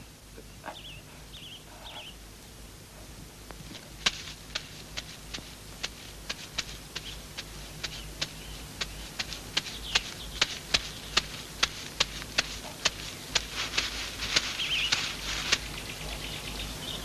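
Footsteps crunching on dry leaves at a steady walking pace, about two to three steps a second, starting about four seconds in and stopping shortly before the end. A few faint chirps come in the first two seconds, over a low steady hum.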